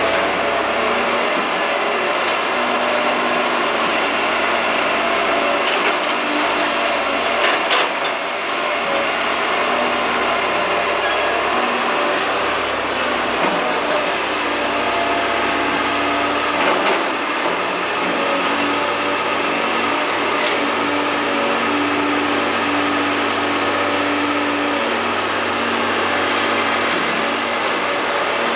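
Caterpillar E240B hydraulic excavator's diesel engine running steadily while digging, its note shifting a few times, with a couple of short knocks.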